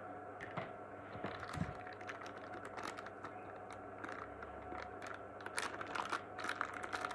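Light, irregular clicks and plastic crinkles as a cable and small bagged accessories are handled in a cardboard box, coming more thickly in the second half.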